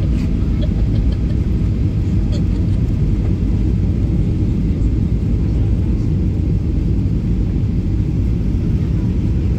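Steady cabin noise inside a Boeing 737 airliner on its landing approach: a deep, even rumble of the jet engines and rushing air around the fuselage.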